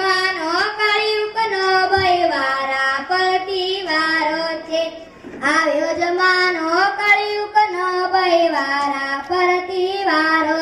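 A child singing a Gujarati qawwali, unaccompanied, in long held melodic lines with a short pause about five seconds in.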